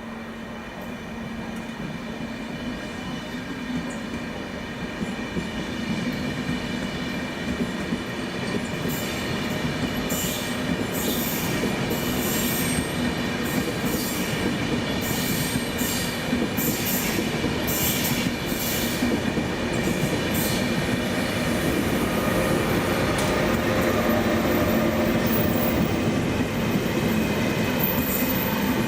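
Train rolling through a station, its wheels squealing on the rails: a steady high whine, with a run of short, shriller squeals in the middle, getting louder as it comes closer.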